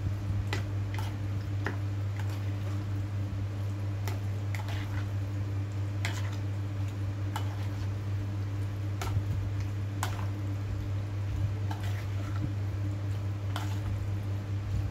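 Wet squishing of dressed black fungus (wood ear mushroom) salad being tossed by spoon and hand in a plastic bowl, with irregular light clicks every second or so. A steady low hum runs underneath.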